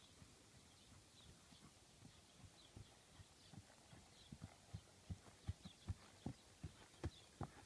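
Hoofbeats of a barefoot, newly unshod horse trotting over grass and hard, uneven ground, dull thuds at about four a second that grow louder as it comes closer in the second half.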